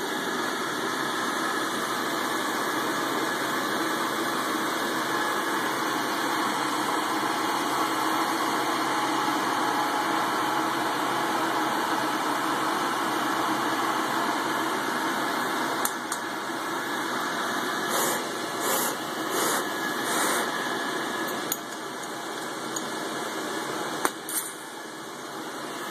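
Bethlehem Barracuda glassblowing bench torch running with a steady hiss while glass is worked in its flame. Past the middle the noise turns uneven, with a few short clicks and taps, and it drops in level near the end.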